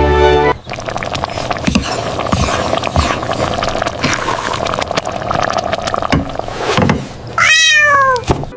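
Kitten meowing: a single loud meow near the end that falls in pitch, after several seconds of soft rustling and small clicks. Background music cuts off about half a second in.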